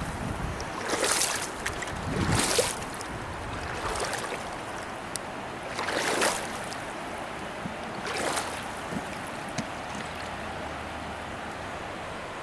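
Steady rush of shallow river water with several short water splashes, about a second and a half to four seconds apart, the loudest near the start and around the middle.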